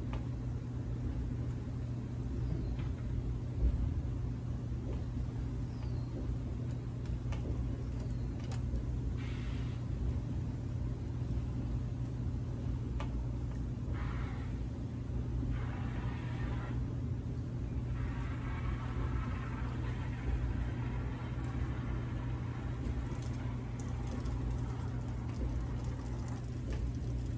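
A steady low rumble, with a few brief, fainter higher-pitched sounds coming and going in the middle.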